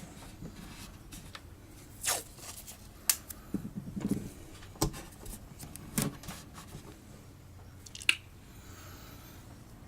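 Hands working on a guitar body at the bench: scattered sharp clicks and light knocks from small tools and parts being handled, with a few soft thuds about four seconds in.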